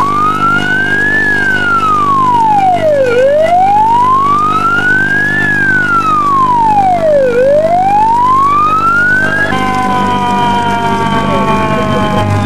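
Vehicle wail siren rising and falling slowly, each sweep taking about four seconds, over a steady low drone. Near the end it gives way to several tones gliding slowly downward.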